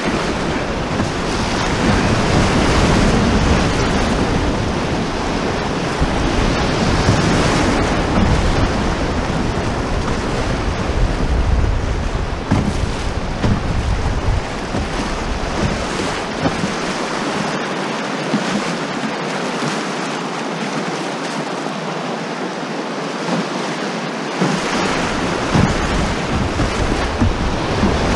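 Whitewater rapids of a fast glacial river rushing and splashing close around a canoe hull as it runs the rapids, a loud, steady roar. Underneath is a low rumble of wind on the microphone that drops away for several seconds past the middle, then returns.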